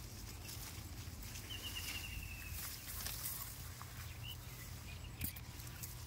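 Faint outdoor ambience: a low steady hum with light rustling and scattered clicks of leaves close to the microphone, a short high warbling trill about one and a half seconds in, and a brief chirp a few seconds later.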